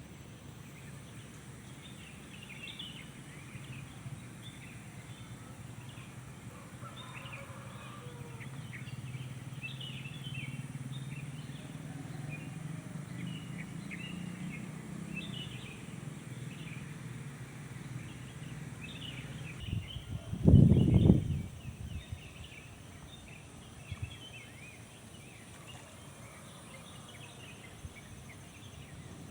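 Small birds chirping and twittering in a steady morning chorus over a low background hum that swells in the middle. About two-thirds of the way in there is a brief, loud low rumble, the loudest sound here.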